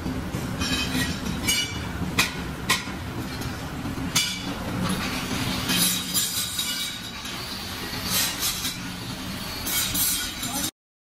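Pressed steel wheel rims clanking against each other as they are handled and stacked, a sharp metallic clank every second or so, over a steady low hum. The sound cuts off abruptly near the end.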